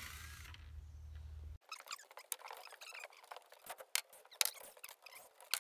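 A steady low hum that cuts off abruptly about one and a half seconds in, followed by scattered light clicks and small squeaks.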